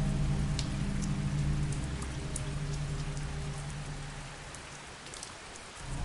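Rain falling, with scattered drops ticking, over a low steady drone. The sound fades down about four seconds in and swells back up right at the end.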